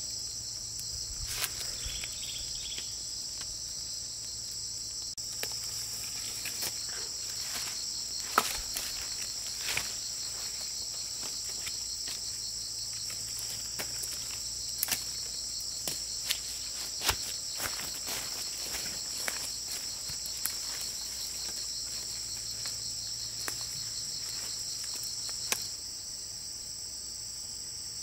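Steady, high-pitched chorus of insects, with scattered sharp clicks and light knocks; the loudest click comes about eight seconds in.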